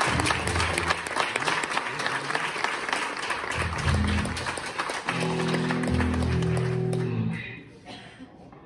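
Audience applauding, dying away about seven and a half seconds in. Under the clapping, a few long low bass notes sound about halfway through.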